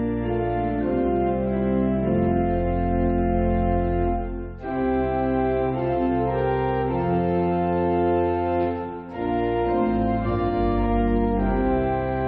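Organ music: slow, sustained chords that change every second or two, with brief breaks about four and nine seconds in.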